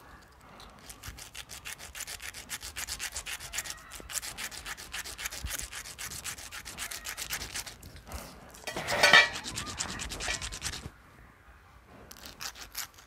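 A lotus seed rubbed back and forth on sandpaper in quick scraping strokes, several a second, wearing through its hard seed coat so the seed will sprout. The scraping is loudest about nine seconds in, pauses briefly, then starts again near the end.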